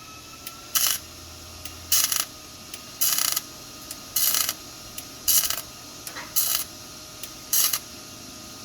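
Electric arc welding: the arc crackles and sizzles in short bursts about once a second, seven times, each lasting a fraction of a second, over a faint steady hum from the machine. The arc is running too hot and the current needs turning down.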